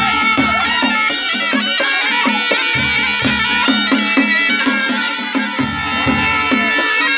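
Nepali panche baja band playing a lively tune: sahanai reed pipes carry the melody over a steady, quick drum beat.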